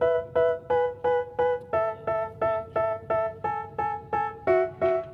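Background music: a keyboard playing a repeated struck chord about three times a second, the chord stepping down about two seconds in and again near the end.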